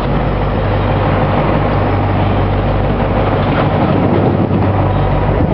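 Fishing boat's engine running steadily with a low hum, under a constant rush of wind and water noise.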